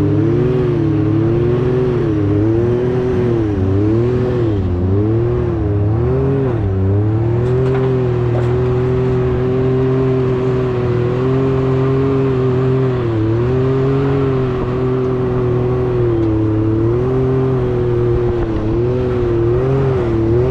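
Can-Am X3 side-by-side's engine running under load in snow, its pitch rising and falling repeatedly as the throttle is worked, then holding steadier from about seven seconds in with occasional dips.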